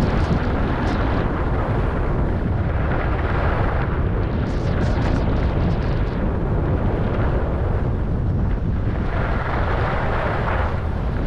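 Steady wind rumble on the microphone of a skier moving down a groomed slope, with skis hissing and scraping over the snow in stretches, longest about halfway through and near the end.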